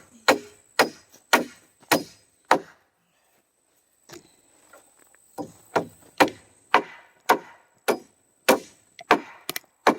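Hammer driving nails by hand into the wooden floor frame of a shed. It strikes in two runs, about two blows a second: about six blows, a pause of a few seconds, then about nine more.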